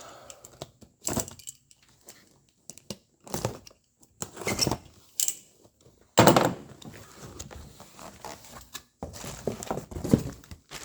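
A cardboard parts box being opened by hand and its brake rotors handled: scattered rustles, scrapes and knocks of packaging and metal, the loudest knock about six seconds in.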